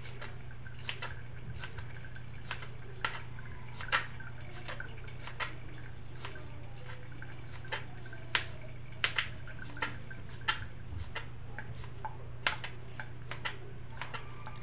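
Kitchen knife slicing unripe Indian mango into strips, the blade tapping sharply on a plastic cutting board at irregular intervals, about a dozen taps. A steady low hum runs underneath.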